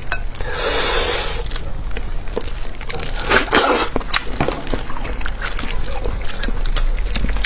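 Close-miked eating of a large cooked fish head: a wet slurp about half a second in, then a run of wet smacking and crunching clicks as the flesh and bones are chewed and sucked.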